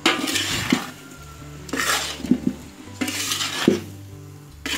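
Metal spoon scraping and clanking against a large metal wok as cubed potatoes are stir-fried, in repeated strokes about every second and a half.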